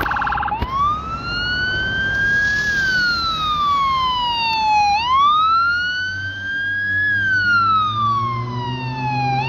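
BC Ambulance siren on wail. A brief rapid pulsing tone at the start gives way to a pitch that rises over about two seconds and falls away slowly, twice through. Road traffic rumbles underneath and grows louder near the end.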